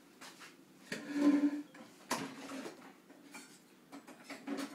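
Knocks and a clatter of hard objects being handled, the loudest about a second in with a brief ring, and another sharp knock about two seconds in.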